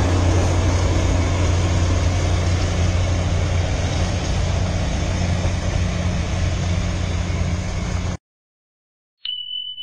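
Steady engine hum and rumbling running noise of a vehicle in motion, cutting off abruptly about eight seconds in. After a second of silence, a steady high beep begins near the end.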